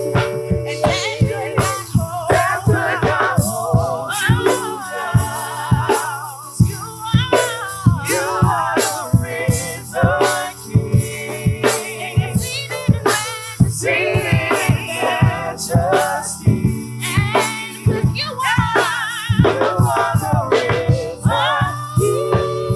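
Live gospel praise music from a church worship band: a steady, busy percussion beat under wavering, ornamented melody lines.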